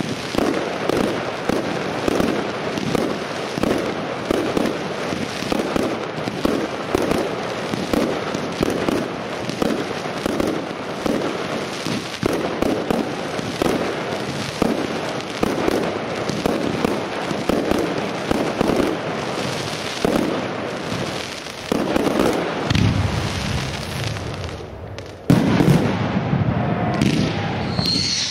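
Professional firework display: shots launching and bursting in rapid succession with dense crackling. About three-quarters of the way through comes a deeper rumble and a single loud bang, followed by a short whistle near the end.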